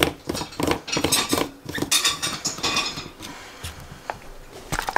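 Plastic clicking and scraping as the blade lid of a personal blender is screwed onto its cup and the cup is handled, with a few sharp clicks near the end.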